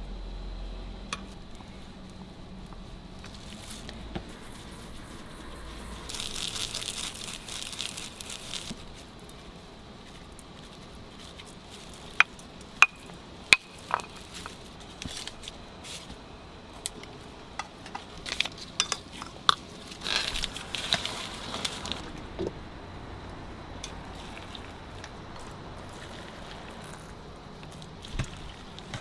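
A spoon clinking and scraping against metal noodle bowls and small seasoning bowls as the bowls are topped with sauce and ground seasoning. Scattered light clicks, three sharp clinks about twelve to fourteen seconds in, and two short spells of rustling hiss.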